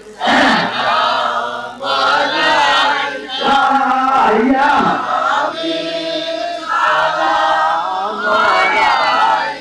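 A man's voice chanting a Bengali zikir (devotional Sufi chant) into a microphone, sung in short phrases with brief breaks between them.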